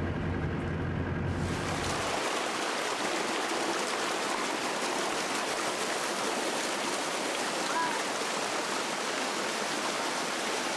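Steady rushing of a Himalayan waterfall, taking over from a low rumble that cuts off about a second and a half in. A faint short chirp sounds over the water near the end.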